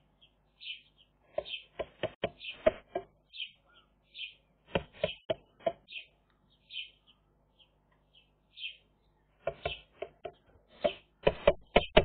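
Twigs clicking and cracking as a Eurasian magpie works its stick nest and lining, in three bursts of sharp clicks, the loudest near the end. Behind them, a bird's short high note repeats about once a second.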